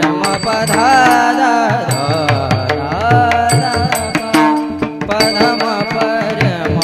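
Devotional abhang singing by a male voice with a wavering melody, over pakhawaj drum strokes and the steady ringing of small hand cymbals (taal).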